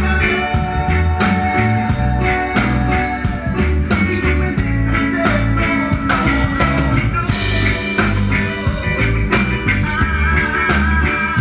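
Live reggae band playing with a steady beat, bass, drums and guitar, and possibly some singing; the sound cuts off suddenly at the very end.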